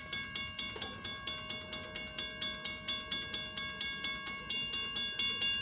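Railroad crossing warning bell ringing fast and evenly, about five strikes a second, each strike leaving a ringing tone. It is the crossing's alarm for an approaching train.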